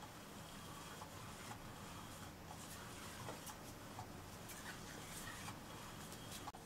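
Faint steady whir of a battery-powered Cat's Meow cat toy running, with scattered light ticks and rustles from its wand and a cat's paws on the nylon cover. The sound drops out briefly near the end.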